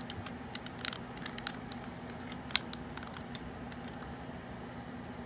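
Small plastic clicks and taps from a vintage Transformers G1 Hot Rod toy being turned over in the hands: a handful in the first second and a half, a sharper click about two and a half seconds in, then a few lighter ones. A steady low hum runs underneath.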